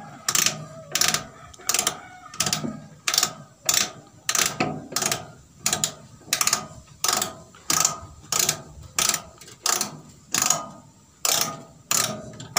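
The roll-gap adjuster on a Yanmar rubber-roll rice husker being turned by hand to open the gap between the rolls, clicking like a ratchet, about two sharp clicks a second.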